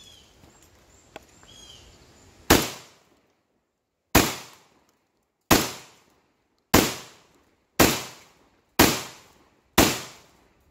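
Seven shots from a Black Aces Tactical Pro Series S Max semi-automatic shotgun loaded with Remington Game Load birdshot. They are fired one at a time, the gaps shrinking from under two seconds to about one, each shot with a short fading echo. The action cycles every round without a stoppage.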